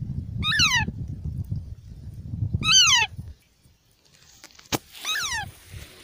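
Indian ringneck parakeet giving three short calls about two seconds apart, each sliding down in pitch, the second the loudest. A low rumbling noise runs under the first two calls and stops after the second, and there is a sharp click just before the third.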